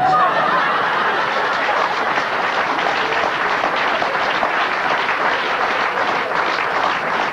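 Theatre audience applauding steadily, a round of clapping in response to a comedian's joke.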